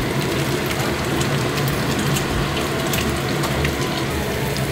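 Dumplings frying in an oiled skillet: a steady sizzle with fine crackling pops throughout, over a low steady hum.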